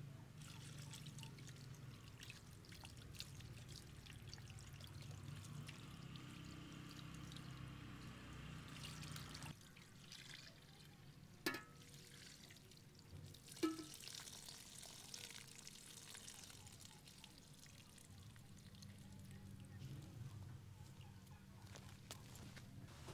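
Water pouring in a thin stream from an enamel jug onto chopped beef tongue in a metal tray while a hand rinses the meat, faint and steady. Two sharp knocks come a couple of seconds apart near the middle.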